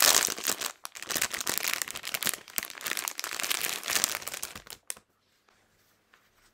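Packaging crinkling and rustling as the gloves' package is opened and unwrapped by hand, a dense run of irregular crackles that stops about five seconds in.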